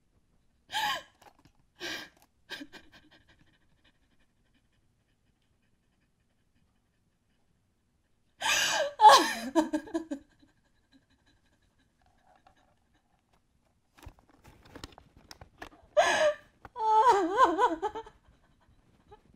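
A person's heavy, breathy gasps and pants in short bursts, with a long silence between them. The loudest come about halfway through and again near the end, where the breath turns into a wavering voiced gasp.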